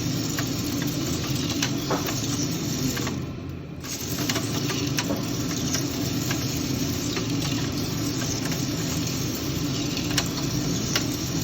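Coffee roaster's cooling tray running, its fan drawing air through the freshly roasted beans as they are stirred: a steady machine noise with scattered light ticks, briefly dipping about three seconds in.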